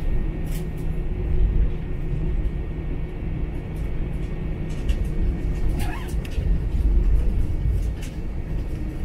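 Cabin noise inside an Airbus A319 taxiing: a steady low rumble from the jet engines and rolling gear, with a faint steady high whine and a few brief clicks and knocks.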